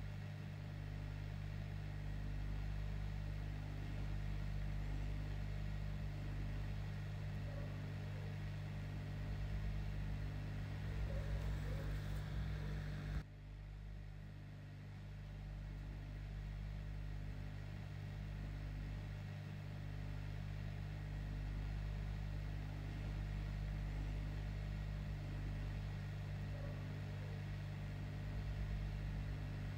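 A steady low hum, with a short click and a brief dip in level about thirteen seconds in.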